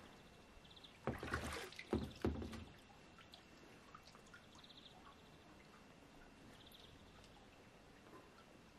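Paddle and kayak hull splashing in pool water as the kayak is leaned over onto its side: a few short splashes between about one and three seconds in, then only faint water sounds.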